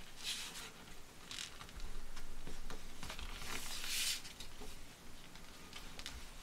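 A sheet of paper rustling and sliding on a cutting mat as it is folded into a paper airplane, with fingers pressing the creases. A longer rustle a little after three seconds is the loudest, followed by a few light ticks.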